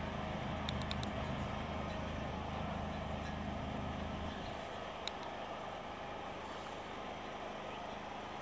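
Generator engine running steadily on a building site, a constant low hum; its deepest hum drops away about halfway through. A few faint clicks near the start and one about five seconds in.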